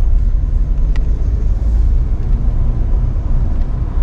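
Steady low engine and road rumble inside the cabin of a Tata Nexon automatic petrol, pulling at about 40 km/h while the gearbox still holds second gear.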